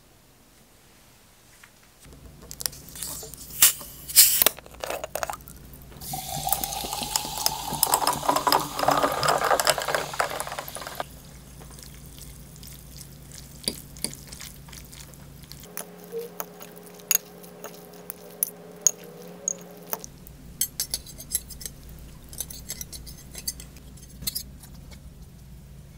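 A few sharp clinks of glass and ice, then a drink poured into an ice-filled glass for several seconds, its pitch rising as the glass fills. After that, a metal fork and spoon click and scrape lightly against a ceramic pasta plate while stirring the pasta.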